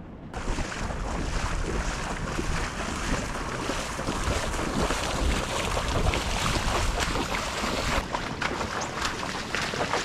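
Strong wind buffeting the microphone over breaking surf, a heavy low rumble with a steady rushing hiss that comes in suddenly just after the start. A few light clicks sound in the second half.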